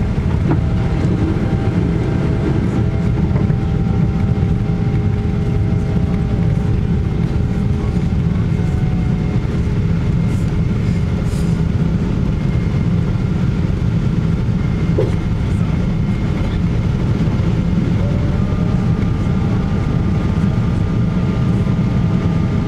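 Cabin noise inside a Boeing 777-200ER on its takeoff run and climb: a loud, steady deep rumble of engines and rushing air, with faint steady whining engine tones above it.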